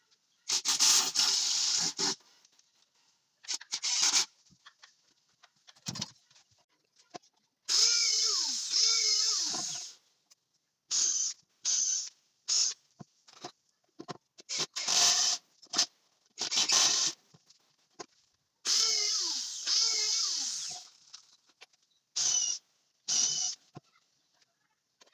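Power drill run in repeated bursts, some short and some about two seconds long, the motor's pitch falling as it winds down after the longer runs.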